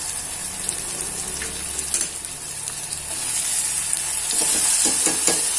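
Spinach purée and masala sizzling in hot oil in a pan, stirred and scraped with a spoon, with a few quick scraping strokes near the end.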